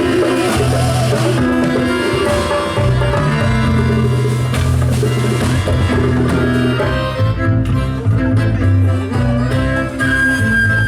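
A live band playing music on stage: a full mix of instruments over sustained low bass notes that change every second or so, with a single high note held near the end.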